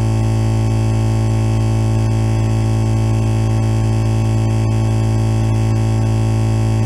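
Electronic noise-music intro: a loud, steady, unchanging deep buzzing drone with many fixed higher tones layered over it.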